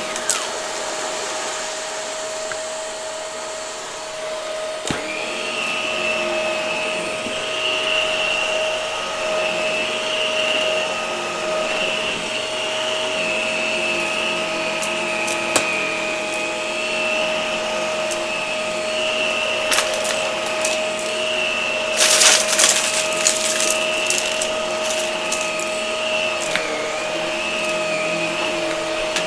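Hart vacuum cleaner running steadily with a constant high tone, picking up debris with scattered clicks and a brief burst of crackling about 22 seconds in.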